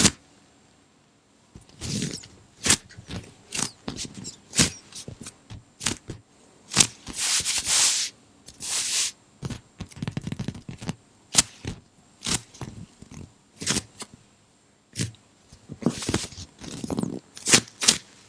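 Giant polyurethane foam squishy toy squeezed and scratched by hand close to the microphone. It gives irregular short crackles and longer scraping rubs, starting about a second and a half in.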